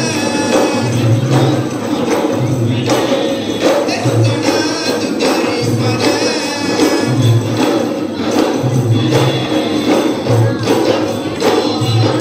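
Live boduberu: several Maldivian barrel drums beaten by hand in a fast, driving rhythm, with a group of voices singing along.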